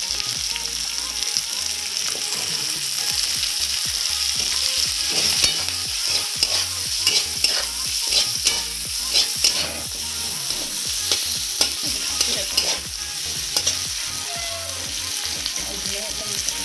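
Chopped onions sizzling in hot oil in a kadai, stirred with a metal spatula that scrapes and knocks against the pan in short strokes throughout.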